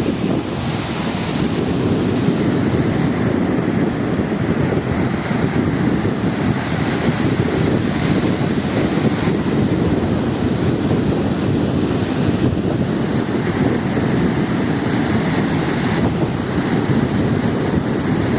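Sea and wind heard as a loud, steady rushing noise, with wind buffeting the microphone.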